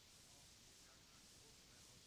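Near silence: the faint, steady hiss of a blank stretch of audio cassette tape.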